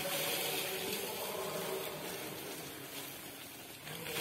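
Dry rice grains pouring from a woven plastic sack into a metal pot: a steady rushing hiss that eases off near the end.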